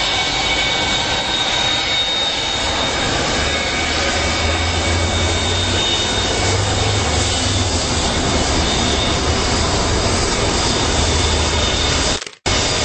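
Boeing 727-200's three Pratt & Whitney JT8D jet engines running as the plane moves on the ground: a steady rush with a high, even whine. The sound drops out briefly near the end.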